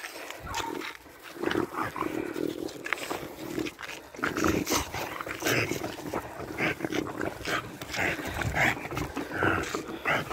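An aggressive dog on a leash growling in short, irregular bursts.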